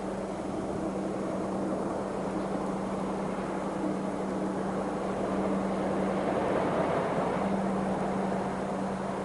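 Heavy mining dump truck's diesel engine running steadily, a constant low hum with a slight swell in loudness partway through.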